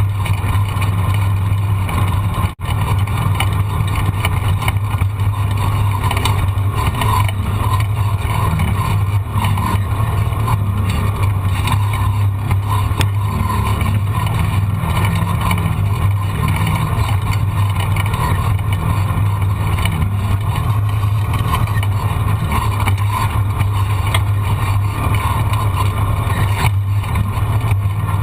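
A vehicle engine drones at a steady speed with little change in pitch, mixed with a rushing noise. The sound cuts out briefly about two and a half seconds in.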